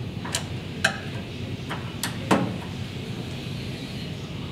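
A screwdriver clicking and knocking against the blade-elevation shaft and handle hub of a SawStop table saw as the shaft is pried loose: about five sharp clicks, the loudest a little over two seconds in.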